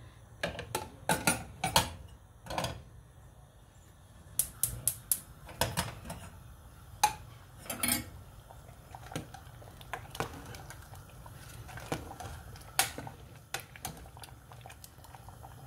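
Steel spoon clinking and scraping against the inside of an aluminium pressure cooker while stirring the chicken gravy: a string of sharp, irregular metallic clinks.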